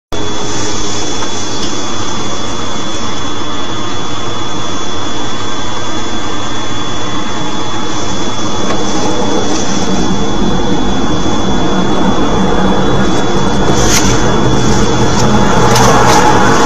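Steady, loud rushing engine noise that swells over the last few seconds, with a thin, steady high whine running beneath it.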